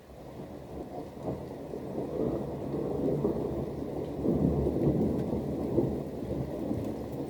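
Rolling thunder over rain: a low rumble that swells over the first few seconds, is loudest around the middle, then eases a little.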